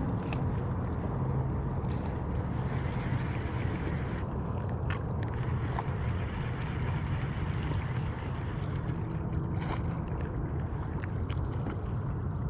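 Small fishing boat under way: its motor running steadily, with wind and water noise.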